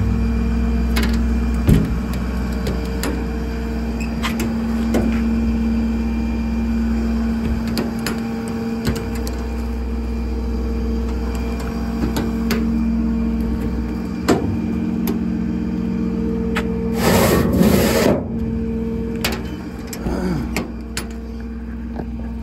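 A Ford 6.7 L Power Stroke V8 turbo-diesel idling steadily, a constant hum and low rumble, with scattered light clicks and knocks of hands on the steel service-body doors. About two thirds of the way through comes a short burst of rushing noise.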